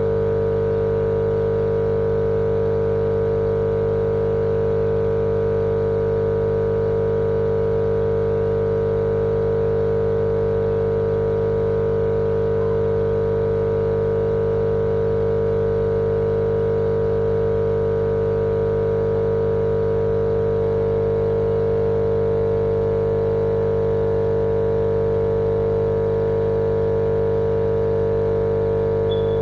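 Steady, unchanging machine-like hum with one strong mid-pitched tone over a lower drone, played continuously as white noise for sleep.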